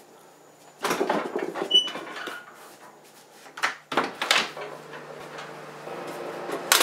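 A door being opened and shut, with clattering handling noises and footsteps in a small room, in several short bursts. A steady hum of the running heater and water softener comes up under it in the second half.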